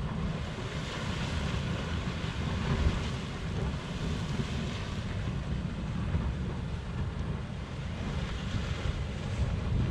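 Wind buffeting the microphone in a steady low rumble, over a continuous rushing hiss from a steaming geyser cone.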